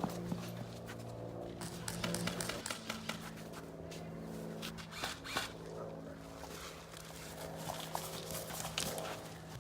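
Scattered sharp clicks and snaps of airsoft guns firing during a game, over a steady low hum.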